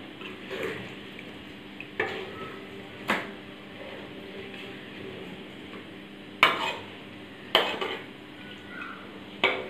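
Metal ladle stirring a thick curry in a wok, knocking and scraping against the pan now and then, with several sharp clanks a second or more apart over a faint steady hum.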